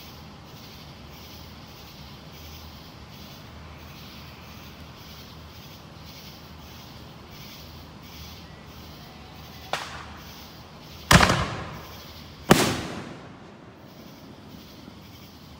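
Aerial fireworks bursting: a smaller bang about ten seconds in, then two loud booms a second and a half apart, each trailing off in an echo.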